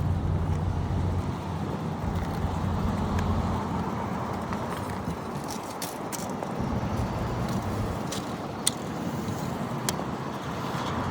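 Road traffic passing, with a vehicle engine's low drone fading away after about four seconds. A few sharp clicks come near the middle and later on.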